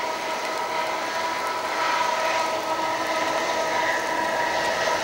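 Two diesel-electric locomotives hauling a loaded coal train past, running with a steady hum of several tones over a wash of train noise, growing slightly louder about two seconds in.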